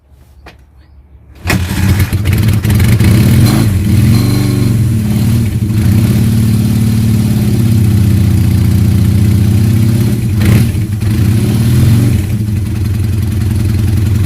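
Old 400 cc motorcycle engine catching about a second and a half in and then running loudly, the revs rising and falling a few times.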